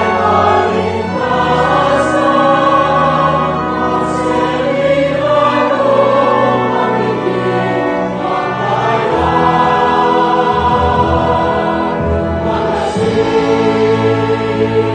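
A choir singing a sacred hymn in long held notes over orchestral accompaniment.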